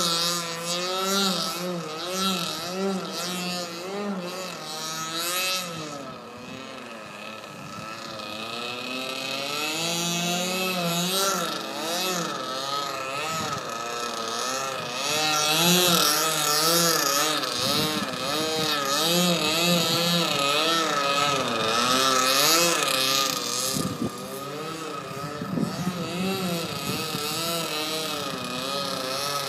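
OS .40 FP two-stroke glow engine of a radio-controlled model airplane in flight, its pitch wavering up and down every second or so as the plane manoeuvres. It fades somewhat early on, then grows louder again as the plane comes closer.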